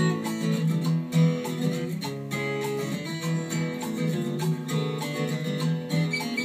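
Music led by strummed and picked acoustic guitar, in a country-americana style.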